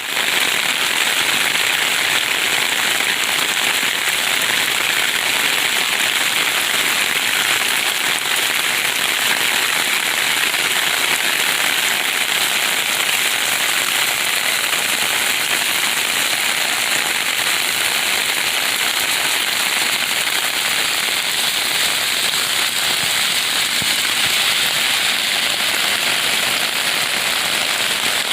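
Steady heavy rain, a dense crackling patter of drops on a surface.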